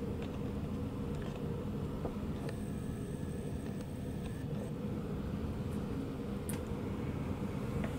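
Motorized display turntable running with a steady low hum, with a few faint clicks.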